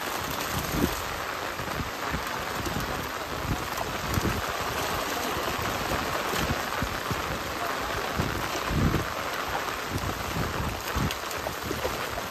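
Continuous splashing and churning water as a mass of fish thrashes inside a drawn-in drag net, with irregular heavier splashes.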